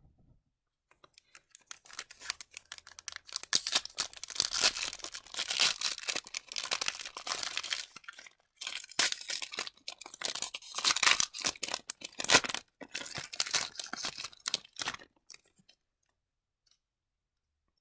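Foil wrapper of an Upper Deck MVP hockey card pack being torn open and crumpled by hand: dense crinkling and crackling. It begins about a second and a half in, breaks off briefly about halfway, and stops near the end.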